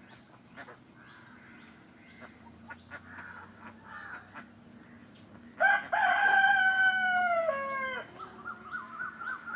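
A rooster crows once about six seconds in: a loud call of a little over two seconds that sags slowly in pitch and breaks off at the end. It is followed by a quick run of short repeated calls. Faint bird chirps come before it.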